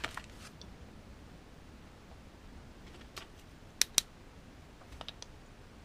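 A few light clicks and taps of small metal parts being handled as the nozzle tip comes off a desoldering gun, with two sharper clicks close together about four seconds in.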